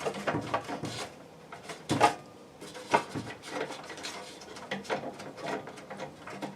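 Irregular small metallic clicks, scrapes and knocks of hands working a gas-pipe nut onto an RV furnace's gas valve, with two louder knocks about two and three seconds in.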